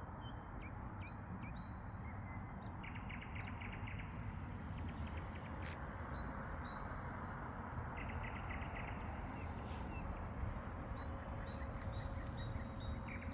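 Nightingales singing: phrases of high whistles and rapid clicking trills, repeated about every five seconds, over a steady low background rumble.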